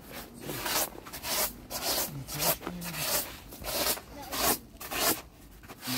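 Repeated rasping strokes in a steady rhythm, a little under two a second.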